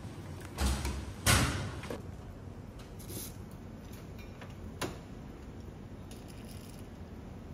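Handling knocks: two heavy clunks close together about a second in, then a single sharp click near 5 s, over low background noise.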